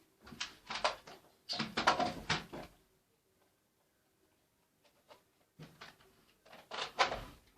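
Clicks and rattles of a Nerf blaster being reloaded, in two bursts of handling a few seconds apart.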